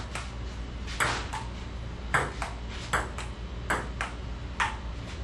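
Ping pong ball clicking off paddles and the table during a rally: sharp hits, often in pairs about a third of a second apart (paddle strike, then bounce), roughly one pair a second.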